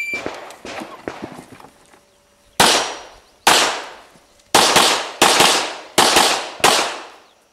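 An electronic shot timer's start beep cuts off right at the start, followed by a few faint pops. Then six loud handgun shots, each ringing out, at uneven spacing of roughly one every second or less, starting about two and a half seconds in.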